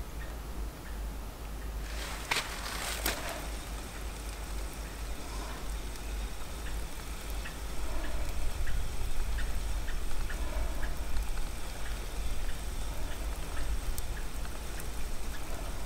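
Spinning rod cast with a brief rush of line leaving the reel about two seconds in. Then the spinning reel is cranked to retrieve the lure, with a run of small, fairly even ticks over a steady low rumble.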